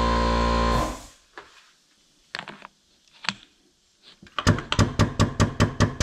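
Crimping press's pump running with a steady hum that stops about a second in, followed by a few sharp clicks of handling. About four seconds in, the press starts working again in a quick, even pulsing of about five beats a second.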